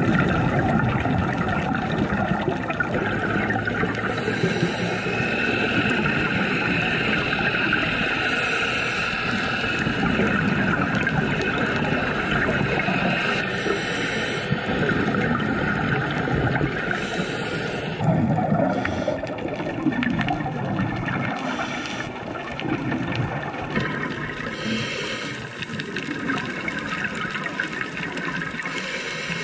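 Underwater recording of moving water and divers' exhaled scuba bubbles, a steady rushing wash whose character shifts about 18 seconds and again about 24 seconds in.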